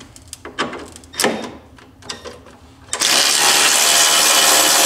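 Cordless 3/8-inch electric ratchet with a brushed (not brushless) motor: a few clicks and knocks as it is set on a bolt, then about three seconds in its motor starts and runs steadily and loud, backing out a rear-bumper bolt.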